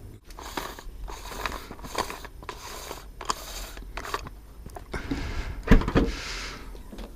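Short crunching strokes, about two a second, for roughly four seconds, then two loud thumps about six seconds in, followed by a brief hiss.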